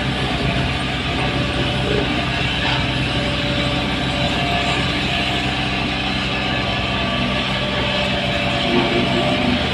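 Heavy diesel construction machinery, a dump truck or excavator, running steadily with a low engine hum.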